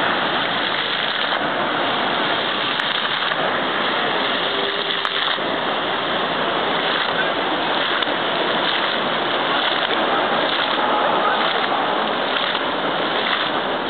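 Fountain water jets spraying up and splashing down onto wet paving in a steady rush.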